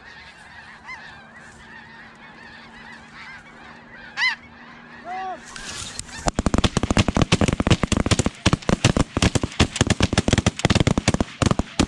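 A chorus of snow goose honking, with a few louder honks standing out. About six seconds in, a rapid volley of shotgun fire from several guns begins, dozens of shots in quick succession, and runs on to the end.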